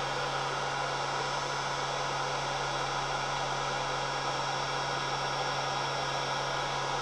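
Heat gun running steadily: an even fan hiss over a constant low hum.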